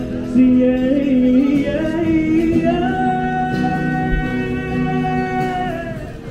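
Live street busking: a singer at a microphone with acoustic guitar, the voice gliding between notes, then holding one long note that fades away near the end.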